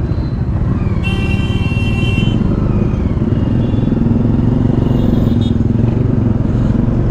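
Bajaj Dominar 400's single-cylinder engine running as the bike rides through dense city traffic. A vehicle horn honks for about a second near the start.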